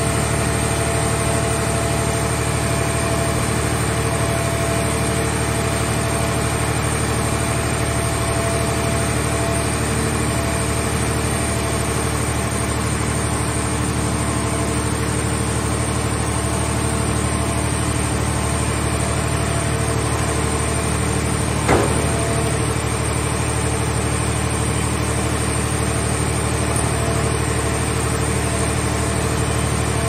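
Hydraulic scrap car baler and its grapple loading arm running with a steady, even engine-like drone while lifting a car body into the baler chamber. A single sharp knock about two-thirds of the way through.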